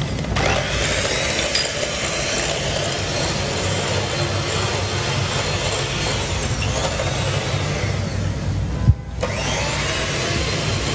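Electric hand mixer running, its beaters creaming butter and powdered sugar in a glass bowl for biscuit batter. About nine seconds in it stops for a moment just after a short knock, then runs again.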